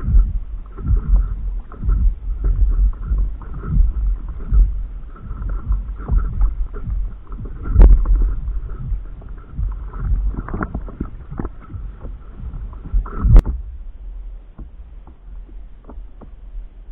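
Water sloshing and slapping against a stand-up paddleboard's hull close to the microphone, with wind buffeting it, in uneven rumbling knocks. A sharp click comes about 13 seconds in, and the water sounds are quieter after it.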